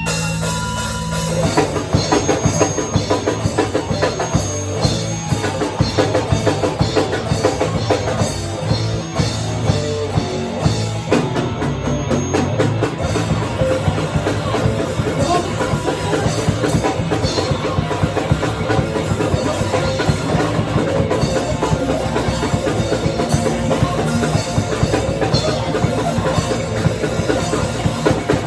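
Live rock band playing loudly, with fast, busy drum kit and bass drum over guitar and bass; the full drumming comes in about a second and a half in.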